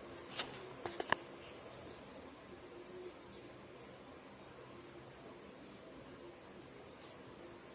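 Faint, short high-pitched chirps repeating at irregular intervals over a quiet background, with a few sharp clicks in the first second or so.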